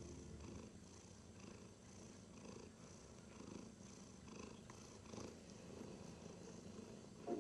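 Ragdoll kitten purring faintly, the purr rising and falling about once a second.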